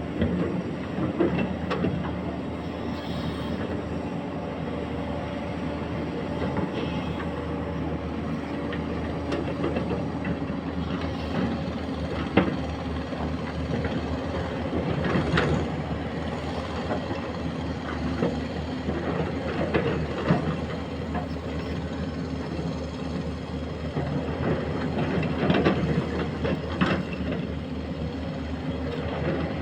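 Excavator's diesel engine running steadily, with occasional sharp knocks and clanks of the machine at work.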